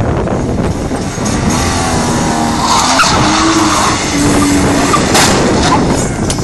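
BMW E36 3 Series saloon being driven in a drift attempt: the engine revs up hard while the rear tyres skid and squeal on the asphalt.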